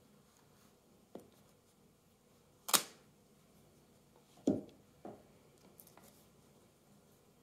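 Hands cutting and pulling plastic shrink wrap off a large record box set: a few separate clicks and light knocks, the loudest a sharp snap about two and a half seconds in, then a duller thump a little under two seconds later and a softer one just after.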